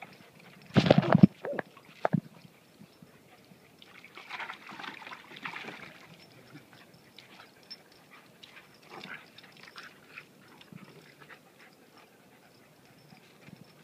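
Dogs playing in and around a water-filled plastic kiddie pool: a short, loud burst of splashing and dog noise about a second in, a hissing spell of water a few seconds later, then light scattered clicks of paws on paving.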